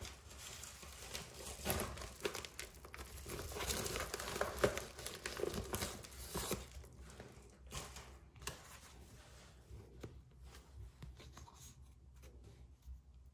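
Plastic bubble mailer crinkling and rustling as it is handled, dense and busiest over the first half, then thinning to scattered lighter crinkles.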